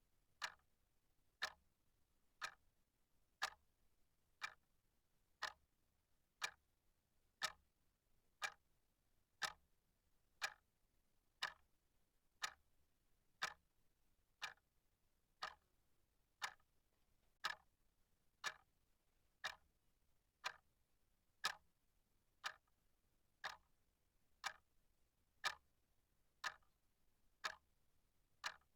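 Clock ticking steadily, about one sharp tick a second, with near silence between ticks.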